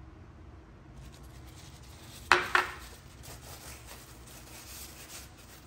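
A bottle set down on a hard kitchen counter: two sharp knocks close together, followed by faint rustling of a paper towel being handled.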